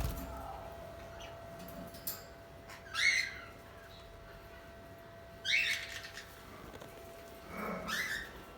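Budgerigars giving three short, harsh chirping calls a couple of seconds apart, over a faint steady hum.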